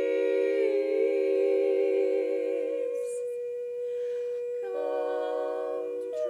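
Women's barbershop quartet singing a cappella, holding a sustained chord in close harmony. About three seconds in, the other voices drop out and one voice holds a single note, then the full four-part chord comes back in near five seconds.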